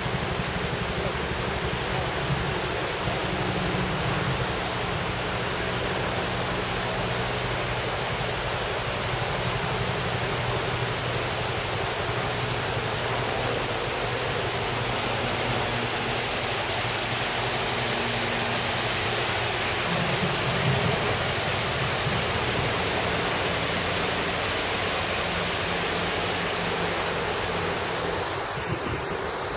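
A mountain torrent's water rushing over a gravel and stone bed: a steady, even hiss.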